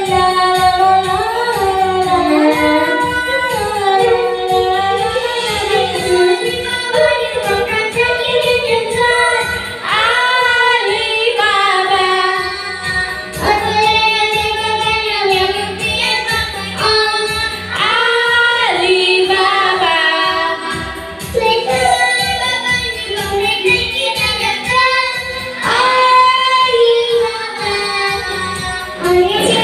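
A children's song playing, a sung melody over a steady beat, with a young child singing along into a toy microphone.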